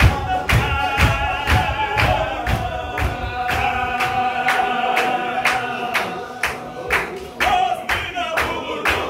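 Men's group chanting a Qadiri Sufi zikr (dhikr), with sharp beats from stamping and clapping about twice a second. For a few seconds in the middle the voices hold one long note, then the beat comes back strongly.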